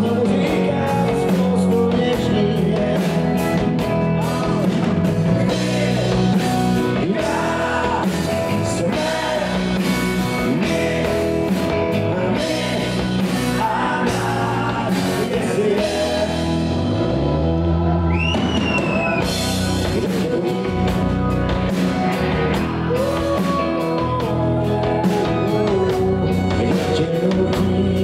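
Rock band playing live on an amplified stage: electric guitar, bass guitar, drum kit and keyboards. A high note slides up and back down about two-thirds of the way through.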